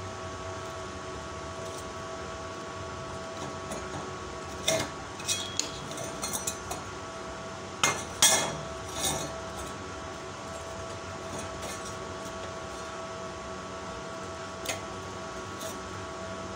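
Bent steel strips for a hexagon paving-block mould clinking and knocking against each other and the workbench as they are handled, a cluster of sharp metal clanks in the middle with the loudest around halfway, over a steady mechanical hum.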